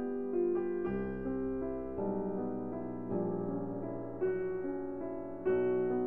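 Background piano music, with new notes or chords struck every second or so.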